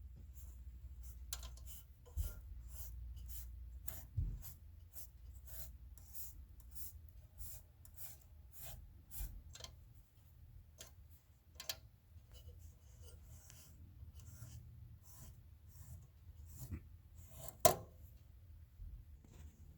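Faint, quick scratching strokes and light clicks, roughly two a second, from hand work on a 1929 Royal Model P typewriter during its restoration; the strokes thin out partway through, with one sharper click near the end.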